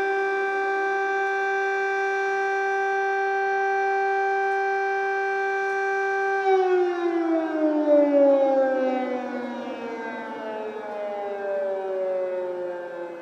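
Ukrainian air raid siren holding one steady tone, then winding down with its pitch falling from about halfway through, while a second tone sinks more slowly alongside it.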